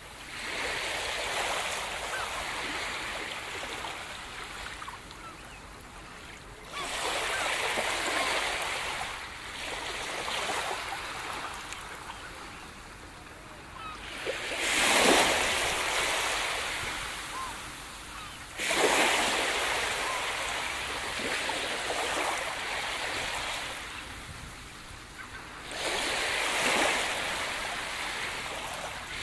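Ocean surf: waves washing onto a beach, the hiss swelling and fading in long surges every five or six seconds.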